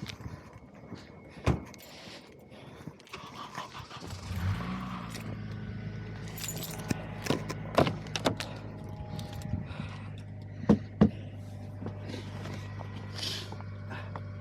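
A car engine starts about four seconds in and then idles steadily, with scattered clicks and knocks over it.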